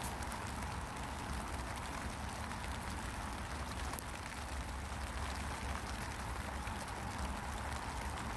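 Light spring rain falling on black plastic mulch and wet soil, an even hiss with scattered single drop ticks, one sharper about four seconds in. A low steady rumble runs underneath.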